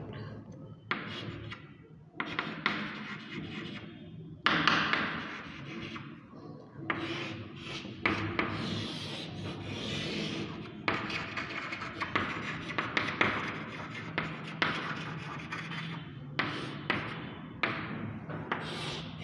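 Chalk scraping on a chalkboard as lines and boxes are drawn: a series of rasping strokes, some long and some short, with brief pauses between them.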